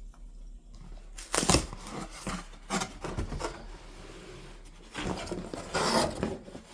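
Hands opening a cardboard shipping box: irregular scraping, tearing and rustling of cardboard and packaging, with a sharp knock about a second and a half in and a louder stretch of handling near the end.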